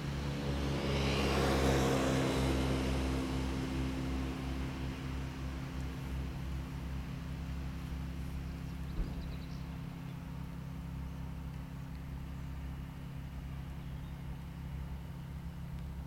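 A car passing on a nearby road, swelling to its loudest about two seconds in and then slowly fading, over a steady low hum. A single sharp click about nine seconds in.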